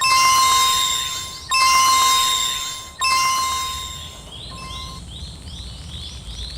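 A cartoon level-crossing warning chime: a bell-like chime struck three times, about a second and a half apart, each strike ringing out. Near the end it gives way to a quick run of short, rising chirps.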